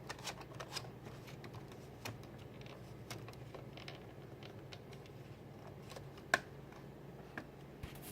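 Scattered light clicks and taps, with one sharper click about six seconds in, over a low steady hum.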